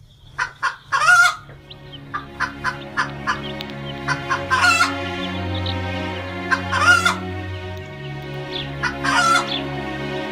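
Chickens clucking, with four louder, drawn-out calls that bend in pitch, over background music of low sustained chords that change every couple of seconds.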